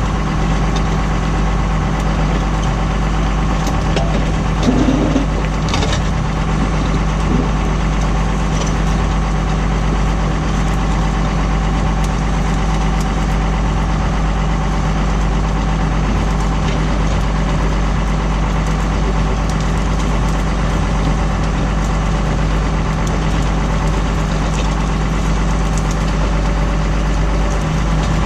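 Tractor engine running steadily while pulling a plough, with a brief louder clunk about five seconds in.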